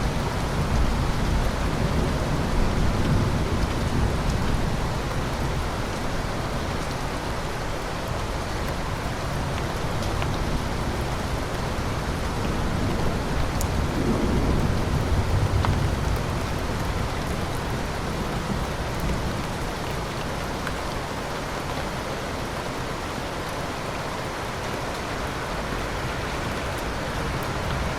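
Steady rain falling, with low rolls of thunder rumbling near the start and again about halfway through.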